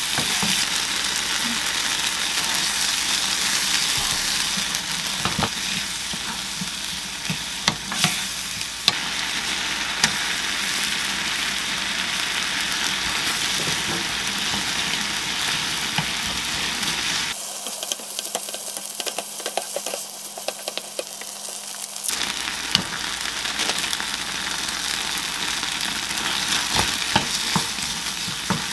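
Chopped tomato and onion sizzling in a small nonstick frying pan on a gas burner while a wooden spatula stirs and scrapes through it, with scattered light knocks of the spatula on the pan; konjac rice is mixed into the sauce partway through. The sizzle thins for a few seconds past the middle, then comes back.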